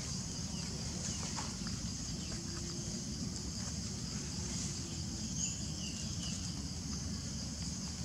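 Outdoor ambience: a steady high-pitched hiss over a low rumble, with a few short, faint bird chirps about five and a half seconds in.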